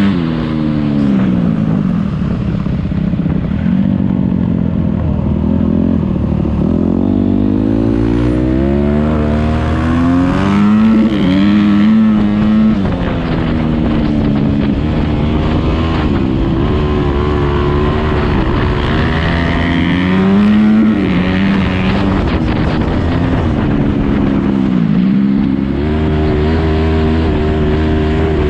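Motocross bike engine revving up and down as it is ridden. Its pitch climbs and falls repeatedly, dropping sharply every several seconds as the throttle closes.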